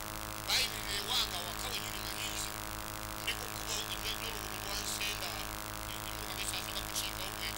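A man speaking through a microphone and loudspeaker, with a steady electrical hum running underneath.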